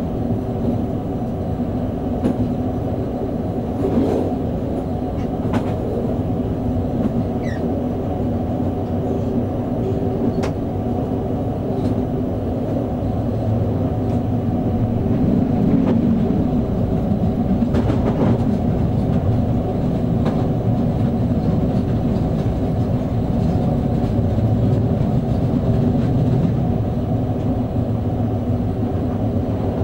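Hamburg S-Bahn electric train running along the track, heard from the driver's cab: a steady rumble from the running gear, with a handful of sharp clicks as the wheels cross rail joints and points.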